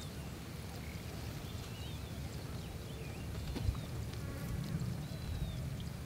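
Wind rumbling low on the microphone across an open paddy field, with a thump a little past halfway. Faint short bird chirps come and go throughout, and a quick rattling call sounds about four and a half seconds in.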